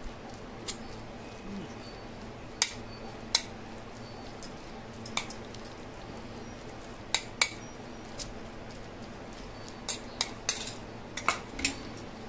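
A spoon clinking against a metal dish about a dozen times at irregular intervals, some strikes ringing briefly, as salad is mixed and served.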